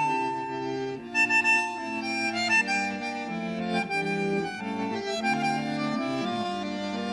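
Instrumental background music: a melody over sustained chords and a bass line, the notes changing every half second or so.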